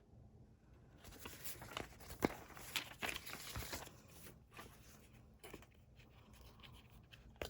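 Paper and cardboard packaging rustling as it is handled, with a few sharp taps in the first half, then quieter with scattered light ticks.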